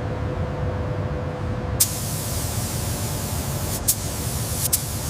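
Steady low industrial rumble with a faint steady hum. A hissing rush like released air sets in about two seconds in, and sharp clicks come at about two, four and four and a half seconds.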